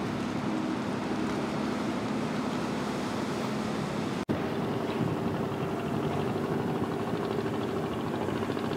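Steady drone of ship engines over a continuous hiss. The sound drops out for an instant about four seconds in, then resumes with the engine hum at a higher pitch.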